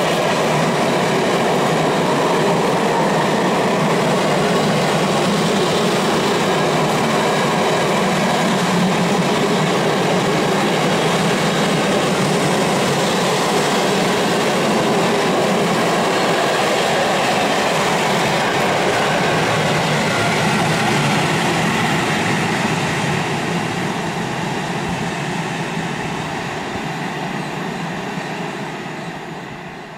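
Freight train of empty stake flat wagons passing, a steady rumble of wagon wheels on the rails. It fades from about two-thirds of the way through as the last wagons move away.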